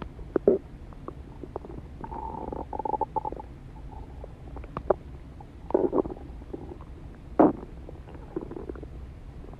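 Stomach growling and gurgling: a drawn-out pitched growl about two seconds in, lasting about a second and a half, among scattered short gurgles and pops, the loudest pop about seven and a half seconds in.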